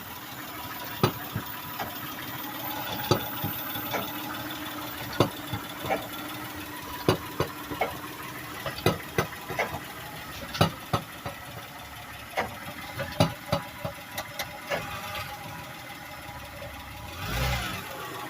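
Toyota Sienna van's engine idling, with irregular sharp knocks or clicks from under the van, which the owner takes to be the exhaust pipe to the muffler hitting the frame because a custom-fitted catalytic converter left too little clearance. A louder rushing noise with a low thump comes near the end.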